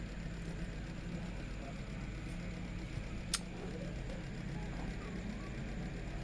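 Steady low background hum with one sharp click a little past halfway through.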